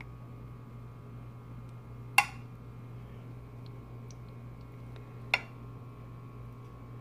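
Metal spoon clinking sharply twice against a glass baking dish while spreading sauce, over a steady low hum.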